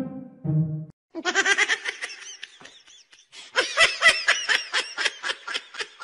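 A person laughing hard in two long runs of quick, high-pitched bursts, after about a second of music at the start.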